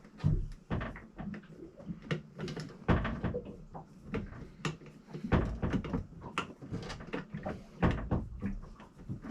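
Cabinet door and its latch hardware being worked by hand: a run of clicks and knocks, with four heavier thumps roughly every two and a half seconds as the door is pushed and shifted.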